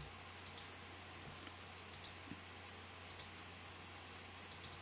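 Faint computer mouse clicks, a handful spread out, some in quick pairs, over a steady low hum.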